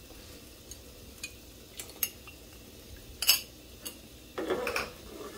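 Stainless steel slotted spoon clinking against the sides of a cooking pot as soup is stirred. A few scattered sharp clinks, the loudest a little past the middle, then a quicker run of stirring and clinking near the end.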